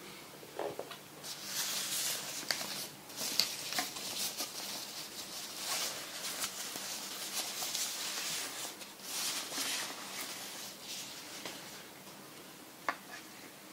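Plastic wrapping bag rustling and crinkling as a plastic laptop dock is pulled out of it, in uneven bursts with small clicks, then one sharp click near the end.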